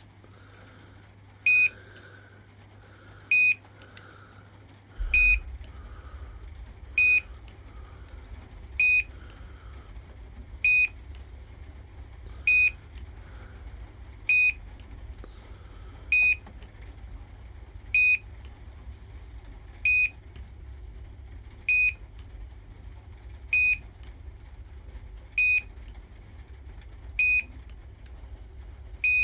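Battery spot welder beeping: a short, high beep repeating evenly about every two seconds, sixteen times. A steady low hum comes on about five seconds in.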